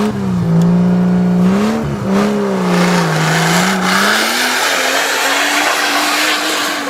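Off-road 4x4 competition vehicle's engine revving, its pitch swinging down and up, then held at higher revs from about four seconds in under a rising rush of noise.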